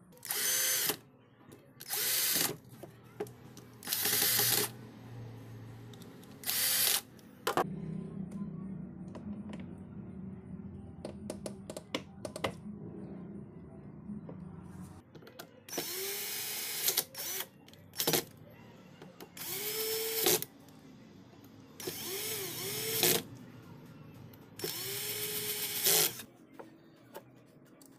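Cordless electric screwdriver running in a series of short bursts, each a second or less, each rising and falling in pitch, as it drives screws into an angle grinder's aluminium gear housing.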